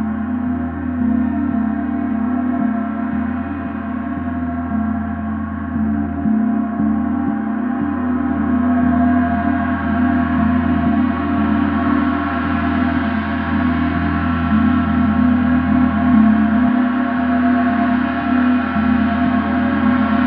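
Paiste symphonic gong being played in a continuous sustained wash of many overlapping tones, with no single strokes standing out. It swells slowly and grows brighter from about eight seconds in.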